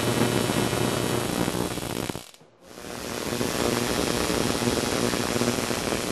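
Home-built Tesla coil firing, its sparks giving a loud, harsh buzzing crackle. It cuts out briefly about two seconds in, then starts again.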